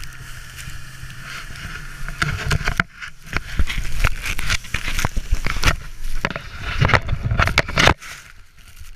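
Sled being towed over snow behind a snowmobile: a steady hiss of the sled sliding with a faint engine hum at first. From about two seconds in comes a rapid run of knocks and scrapes as it bounces over rough snow, which drops away suddenly about eight seconds in.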